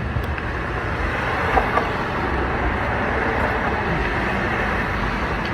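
Steady road traffic noise from a busy street, a continuous wash of passing vehicles.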